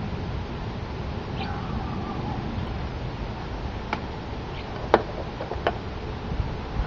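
Three sharp clicks and taps as a closed Kershaw Leek folding knife is set down on a hard surface, the middle one the loudest, a little past halfway through, over a steady low background rumble.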